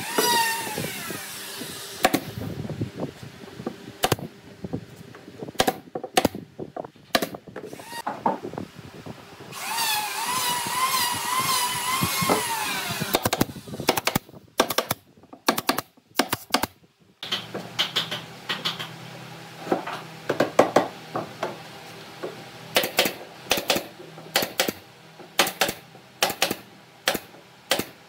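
Electric drill driving screws into pine, its motor whining and sagging in pitch as the screw bites for about three seconds near the middle. Sharp clicks and knocks come between, and in the second half a quick run of them over a low steady hum.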